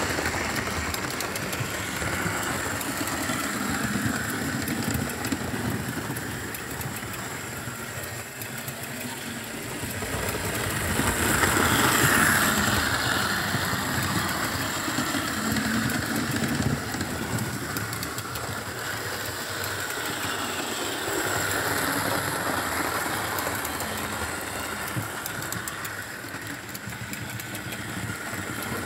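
Model railway train running on its track: the electric motor of a 4-6-2 model steam locomotive, number 6201, humming as it hauls coaches, with wheels running over the rails. The sound swells to its loudest about twelve seconds in as the train passes close, then eases.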